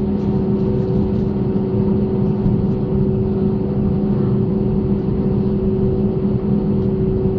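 Boeing 737's turbofan engines at low thrust while the airliner taxis, heard inside the cabin: a steady, even hum with a few held tones over a low rumble.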